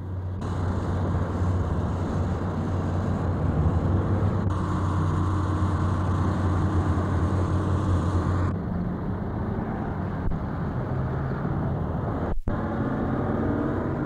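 Road-construction site noise: heavy vehicle engines and traffic running steadily with a low rumble. The sound changes abruptly about four times.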